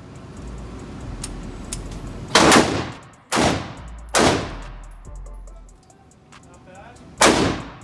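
Gunshots at a shooting range: four loud shots at uneven intervals, each with a fading tail, and fainter pops in between.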